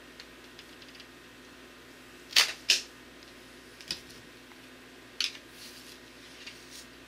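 A shot from a traditional bow: the string cracks on release and the arrow strikes the target a moment later, two sharp cracks about a third of a second apart. A few lighter clicks and knocks follow.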